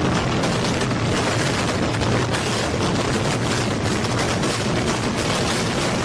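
Multi-storey concrete building collapsing: a loud, steady rumble of falling structure with many sharp cracks running through it.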